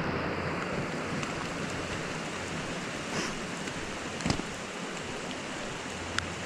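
Steady rushing of a small creek running over rocks, with a couple of short knocks about four and six seconds in.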